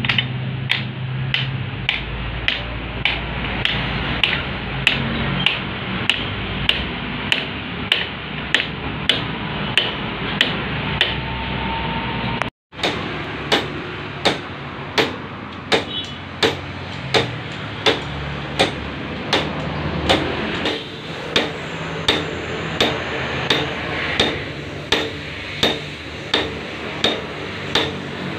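Small hammer tapping metal on a steel shaft clamped in a lathe, in an even rhythm of a little more than one knock a second, over a steady workshop hum. The knocking breaks off briefly about halfway.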